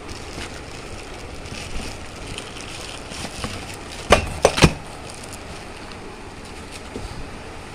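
Plastic packing bags crinkling and a cardboard box rustling as plastic-wrapped parts are handled and lifted out. Three sharp knocks come close together about four seconds in.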